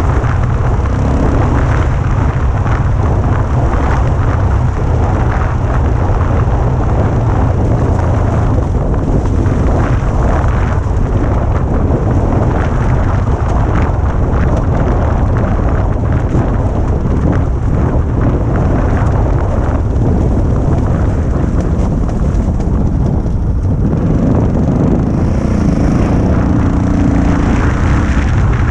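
Motorcycle engine running steadily as the bike rides along a grassy track, with heavy wind rumble on the camera microphone. The engine's pitched note stands out more clearly about 25 seconds in.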